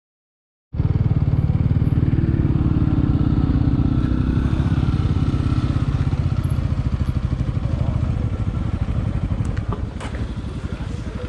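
Motorcycle engine running steadily on the move, its rapid firing pulses loud and low; the sound cuts in abruptly just under a second in and eases slightly near the end.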